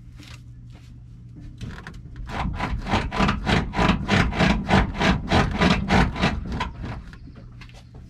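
Toyota Tacoma's suspension being bounced by hand, starting about two seconds in and stopping near the end: about four quick rocks a second, each bringing a crackling creak from the leaf-spring bushings. The crackle is still there with the bushing bolt loosened, so the bind theory has not cured it.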